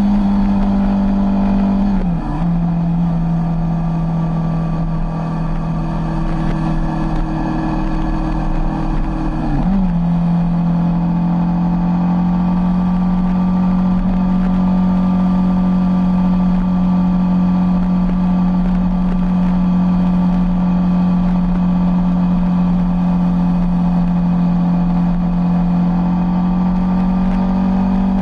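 Sport motorcycle's engine running at highway cruising speed with a steady note. The note steps down about two seconds in, dips and settles a little higher about ten seconds in, then holds steady, over a low rush of wind noise.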